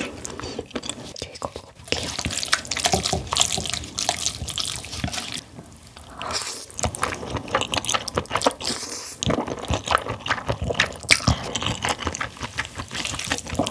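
Close-miked wet eating sounds: glass noodles in spicy sauce being slurped up and chewed, with steady irregular sticky smacks and clicks.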